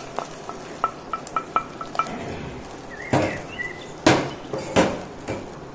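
Caramel bubbling and spitting in a steel saucepan, with light ticks early on and a few louder spits in the second half.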